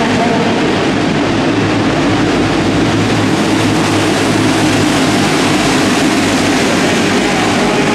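Engines of a pack of racing go-karts running together at speed, a loud, steady, dense drone of many small engines.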